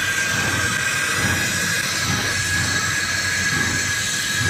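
Brazing torch flame hissing steadily while a copper pipe joint on a hermetic refrigeration compressor is brazed, with a steady high-pitched whistle alongside.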